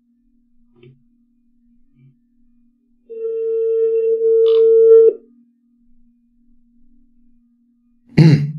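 Telephone ringback tone of an outgoing call ringing: one steady beep about two seconds long starting about three seconds in and cutting off sharply, over a faint low hum. The call is still unanswered.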